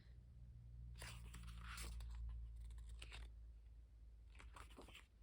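Faint rustling of paper pages being handled and turned in a photobook, a few soft scrapes over a low steady hum.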